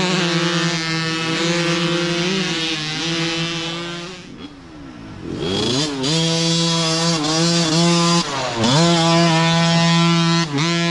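Several mini dirt bike engines revving under load on a trail climb, their pitches overlapping. The sound dips for about a second near the middle, then the engine pitch falls and climbs again twice as riders work the throttle.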